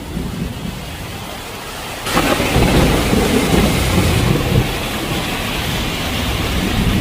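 Heavy rain pouring down in a thunderstorm. About two seconds in, a low rumble of thunder sets in suddenly and rolls on for a couple of seconds before easing back into the steady rain.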